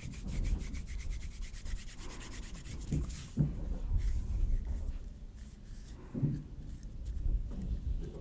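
Hands rubbing together in a dry, scratchy rub, with a few louder swipes about three seconds in and again past six seconds.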